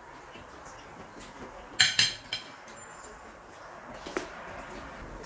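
Cutlery clinking against plates while eating: three sharp clinks in quick succession about two seconds in, and another near four seconds.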